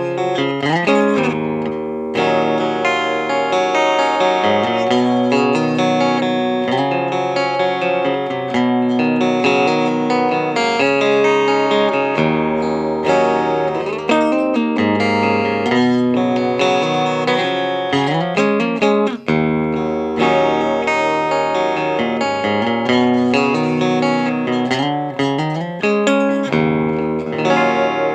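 Electric-acoustic guitar played through a hand-wired tube amp, at a clean, undistorted setting. The amp runs 6SL7 preamp tubes and a pair of 6V6 power tubes into a Weber 10F150 speaker. The chords ring out and change continuously.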